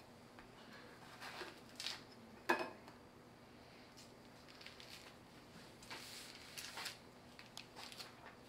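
Orange peel being torn and pulled off by hand, in short, faint ripping and rustling bursts, with one sharp knock about two and a half seconds in.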